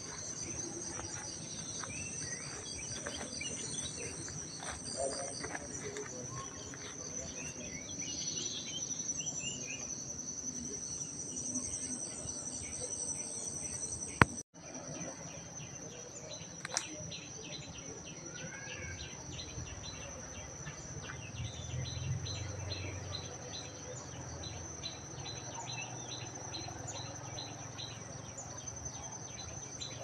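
Countryside morning ambience: a steady high-pitched insect drone with birds chirping and calling over it, including quick repeated chirps in the second half. A sharp click with a brief drop-out comes about halfway through.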